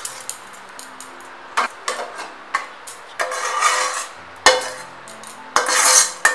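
A spatula knocking and scraping against the cooking pan and a ceramic serving bowl as cooked leafy greens are transferred. There are about eight sharp knocks, starting about a second and a half in, with scraping between them.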